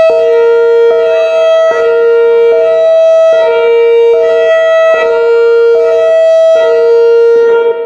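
Whelen R4 rotating electronic outdoor warning siren sounding its Hi-Lo tone, a loud two-note wail switching between a high and a low pitch about every 0.8 seconds.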